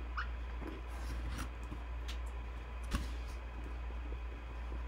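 Quiet room tone: a low steady hum with a few faint scattered clicks and taps, one sharper click about three seconds in.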